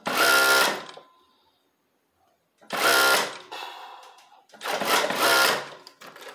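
Industrial coverstitch machine running in three short bursts about a second or less each, starting and stopping abruptly, as it stitches a wide hem.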